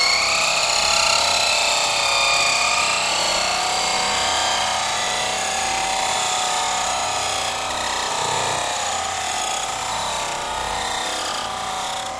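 A toy RC rock crawler's electric drive motors and gears whining steadily as it drives over sand, the pitch drifting a little up and down with throttle.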